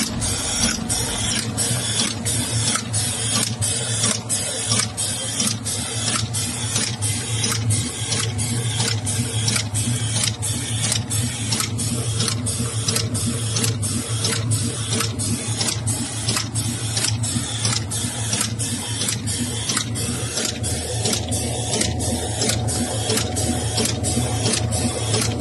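Automatic capsule filling machine running. It makes a steady clatter of about three strokes every two seconds over a low hum.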